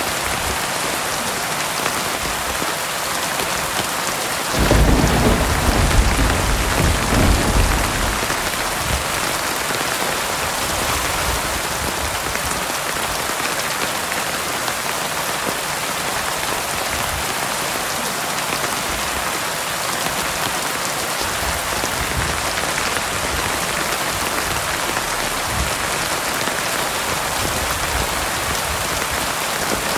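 Heavy rain pouring steadily, with a roll of thunder rumbling about five seconds in and dying away a few seconds later.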